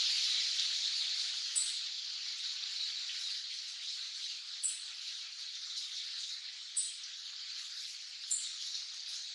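Black-faced bunting giving short, thin, high call notes four times, irregularly one and a half to three seconds apart, over a steady background hiss that is louder than the calls.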